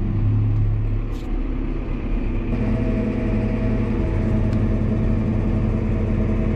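Fendt Vario tractor's engine running steadily, heard from inside the cab while it pulls a mounted fertilizer spreader. About two and a half seconds in, the note steps up and higher steady tones join as the tractor sets to work spreading.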